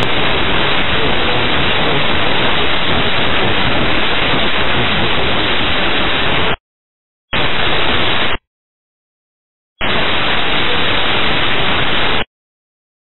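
Loud, even radio static hiss on an air traffic control frequency, with no voice in it. It comes in three stretches, about six and a half seconds, then about a second, then about two and a half seconds, each cutting off abruptly.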